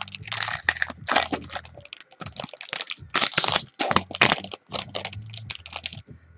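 Foil wrapper of a trading-card box topper crinkling and tearing as it is torn open by hand, a busy run of sharp crackles that stops shortly before the end.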